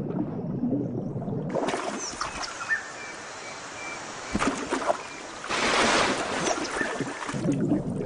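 River water sounds: a muffled underwater rumble, then from about a second and a half in, water noise at the surface with a few high chirps, growing louder with splashing from about five and a half seconds. Near the end the muffled underwater rumble returns.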